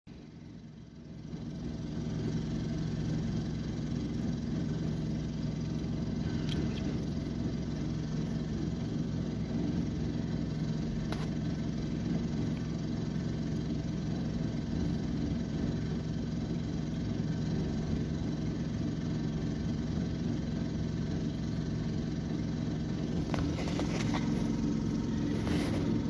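Engine of a portable concrete mixer running steadily at constant speed, heard from inside a car, coming up about a second and a half in. A few sharp knocks sound near the end.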